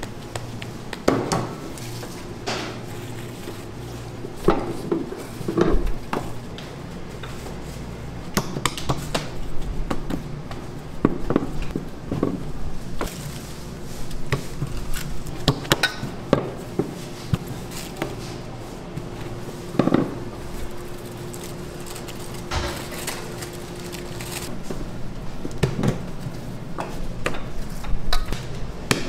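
Kitchen food-prep handling: scattered knocks and clatters of gloved hands, trays and utensils on stainless steel worktables as dough is shaped and filled, with a steady hum underneath through the middle.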